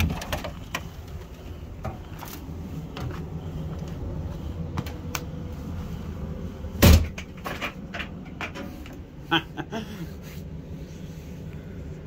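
An RV entry door being shut with a loud bang about seven seconds in, among scattered knocks and footfalls as someone comes in up the entry steps; a smaller knock follows a couple of seconds later.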